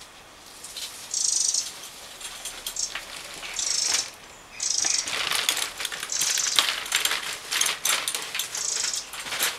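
Homemade wheeled robot trolley rolling over a paved path, with clicking and rattling. A short high chirping bleep repeats about five times.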